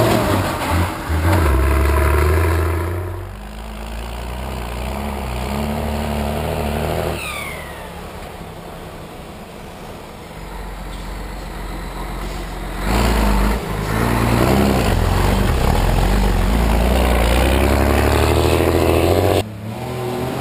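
Engines of off-road competition trucks driving the dirt course: one loud as it passes close at the start, then fainter, then a second loud engine pass from about two-thirds through that cuts off abruptly near the end.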